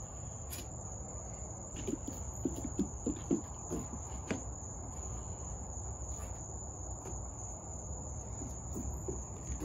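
Night insect chorus: a steady, high-pitched trill that never lets up. A few soft thumps come in the first half.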